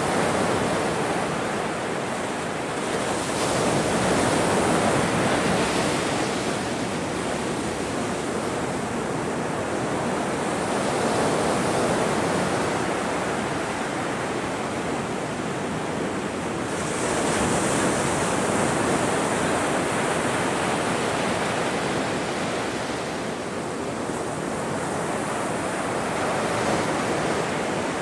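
Ocean surf breaking and washing in: a continuous rush of water that swells with each wave every several seconds.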